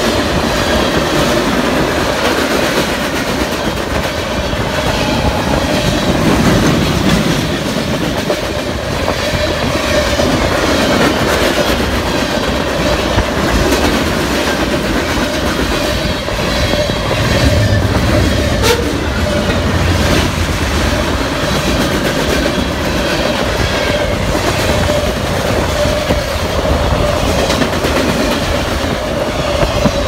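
Freight train cars (boxcars and autorack cars) rolling past close by, their steel wheels clacking over the rail joints in a steady, loud rumble. A thin steady tone runs underneath the clatter.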